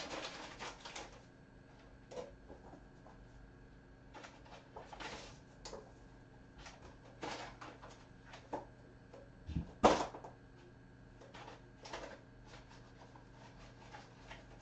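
Kittens scrabbling and scratching with their claws on a carpeted cat tree: irregular short scrapes and soft knocks, with one louder thump a little before ten seconds in.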